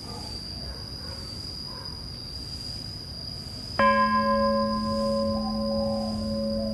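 A temple bell struck once about four seconds in, ringing on with a low hum and a pulsing middle tone while its higher overtones fade quickly. Under it, a steady high-pitched insect trill.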